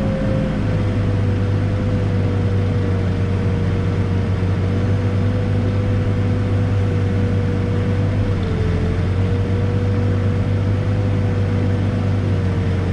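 Backhoe's diesel engine running steadily under work, with a steady whine over a low hum; the whine sags briefly in pitch a little past the middle, then recovers.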